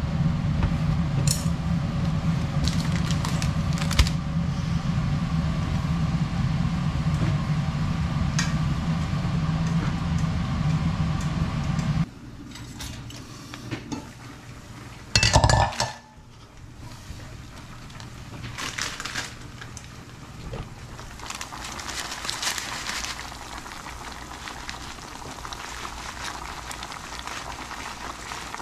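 Cooking sounds at an aluminium pot: light clinks over a steady hum that cuts off abruptly partway through. Then comes one loud clank of the pot lid, followed by the crinkle of a plastic noodle packet being handled.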